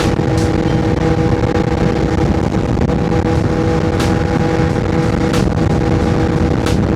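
CF Moto 675SS three-cylinder sport bike with an aftermarket exhaust, running at a steady cruise with its engine note holding one pitch under heavy wind rush.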